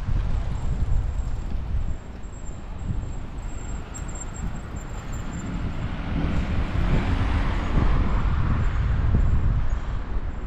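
Road traffic noise: a steady low rumble, with a vehicle passing that is loudest about seven to nine seconds in.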